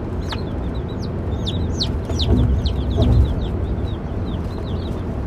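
Baby chicks peeping: a run of short, high calls, each falling in pitch, about two or three a second, over a steady low rumble.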